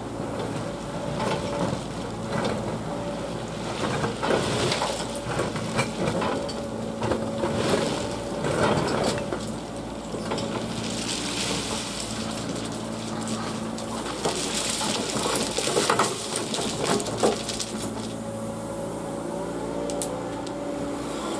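Diesel engine of a road-rail excavator running steadily, with repeated metallic clanks and spells of gravelly scraping and crunching from ballast stones being worked.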